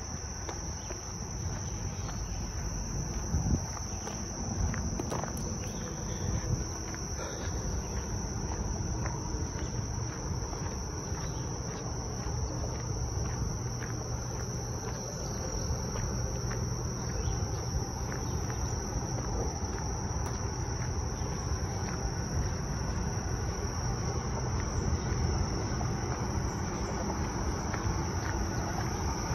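Steady, high-pitched chorus of insects such as crickets, with a fainter second, higher tone, over a low rumbling noise.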